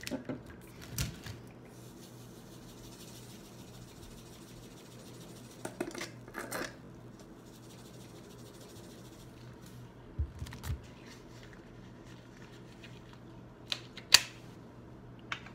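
Salt being poured through a cut-off plastic bottle funnel into a rubber balloon by hand: faint rustling, with scattered clicks and taps from handling the bottle and balloon, the sharpest a little before the end, over a faint steady hum.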